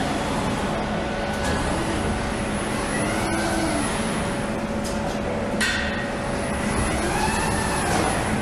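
Automated coil-winding machine spinning its arm around to wind copper wire into an electric-motor coil. Its drive whine rises and falls in pitch twice as the arm speeds up and slows, over a steady machinery hum, with a few sharp clicks.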